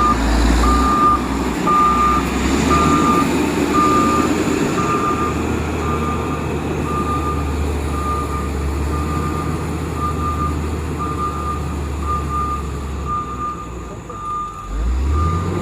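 Reversing alarm on a heavy road machine beeping steadily, about one and a half beeps a second, over the low hum of its diesel engine.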